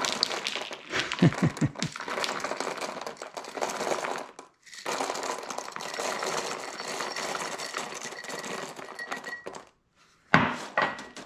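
Dry beans and rice being poured and scooped into a narrow plastic bag: a dense rattling patter of grains with the bag crinkling, stopping briefly twice.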